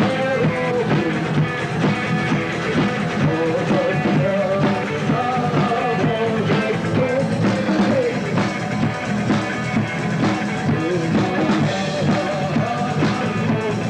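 Rock band playing live, with singing over guitars and drums, in a loud, continuous full-band mix.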